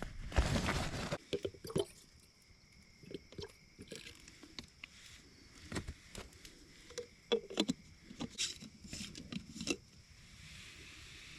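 Rustling and crinkling of plastic MRE ration packets being sorted through by hand. A louder burst of rustling in the first second, then scattered crinkles and small taps.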